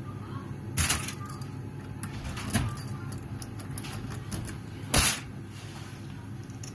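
Light metal clicks and ticks with two sharp knocks, about a second in and near the end, from handling and picking a small cast-iron Tri-Circle padlock, over a steady low hum.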